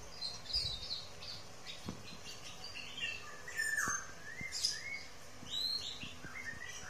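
Small birds chirping in the background: a scatter of short, quick calls that rise and fall in pitch, busiest in the middle.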